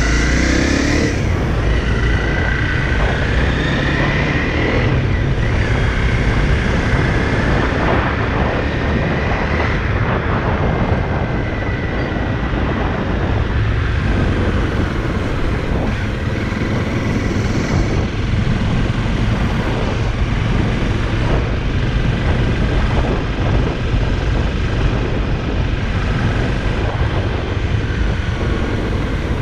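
Honda CRF motorcycle running steadily while being ridden, with a constant low rush of wind over the microphone.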